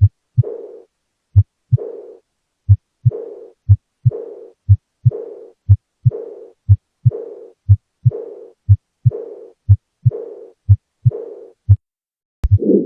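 Heart sounds with a murmur: paired low 'lub-dub' beats about once a second, each second beat followed by a soft hiss that fades away before the next pair. Near the end a click comes, and a louder, longer murmur starts.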